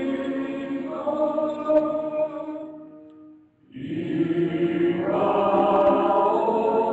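Choral singing with long held notes, breaking off briefly about three and a half seconds in before the next phrase comes in fuller.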